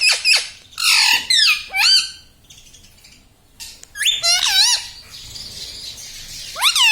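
Indian ringneck parrot squawking in quick runs of sharp, high, wavering calls, with a quiet gap around three seconds in.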